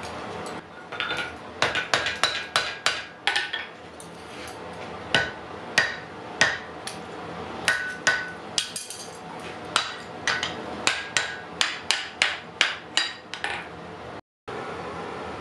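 Hand hammer striking red-hot wrought iron on an anvil while forging an axe head: an irregular series of sharp blows, about two to three a second, each with a short metallic ring, in several runs with brief pauses. The blows stop near the end, leaving a steady background noise.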